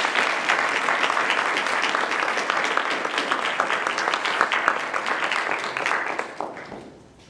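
Audience applauding, a dense clatter of many hands clapping that dies away about six to seven seconds in.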